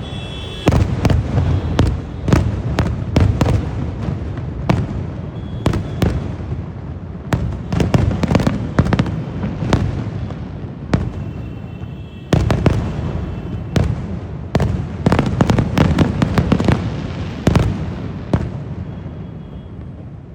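Fireworks going off in rapid, irregular volleys of sharp bangs and crackles, many overlapping, over a deep booming rumble. There is a short lull just past halfway before a fresh volley starts.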